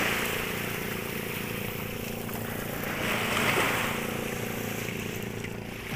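Steady hum of a fishing boat's motor running, with the rush of water and wind swelling briefly about three seconds in.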